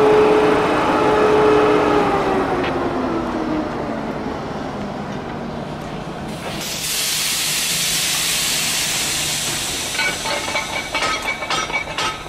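EP2K electric locomotive running with a steady whine that falls in pitch over a couple of seconds as it pulls away. About halfway through, a loud hiss of released air starts suddenly and lasts about three seconds, followed by a run of sharp clicks and knocks near the end.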